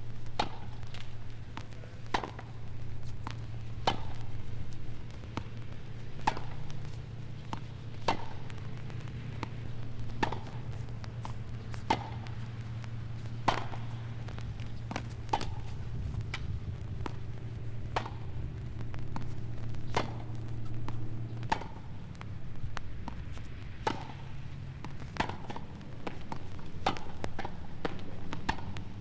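A series of sharp knocks or chops, about one every one to two seconds, over a steady low hum that cuts off about three-quarters of the way through.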